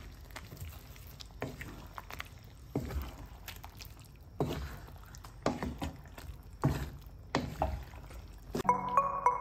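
Wooden spatula stirring and scraping saucy pork steak, mushrooms and onion in a pan, a knock or scrape about once a second over a faint simmer. Music starts near the end.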